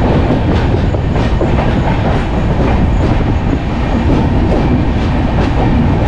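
Passenger express train moving out through a station, its coach wheels clattering over rail joints and points over a steady rumble.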